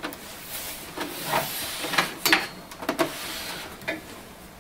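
Plastic-cased Brother ADS-2500We desktop scanner being handled and turned around on a desk: a few sharp knocks and clicks, with scraping and rustling between them.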